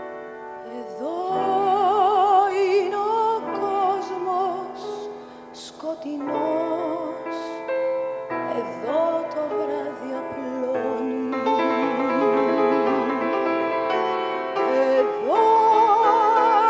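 A woman singing a Greek song in a full, operatic voice with wide vibrato, over piano and a small band accompaniment. Her phrases break off briefly a few times, and near the end her voice slides up into a long held high note.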